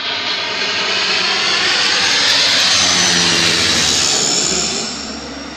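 Bombardier 415 water bomber's twin turboprop engines, loud as it passes low overhead. The sound builds to a peak and then fades away near the end.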